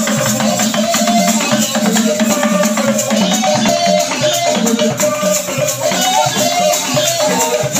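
Dance music with a quick, steady rattle beat under a melody line.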